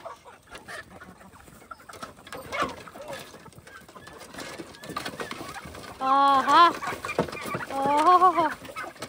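Chickens clucking around a coop, with two louder, drawn-out wavering calls about six and eight seconds in.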